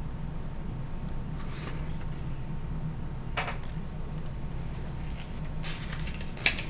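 Hardcover picture book being handled and moved, giving a few brief rustles and a sharp knock near the end, over a steady low hum.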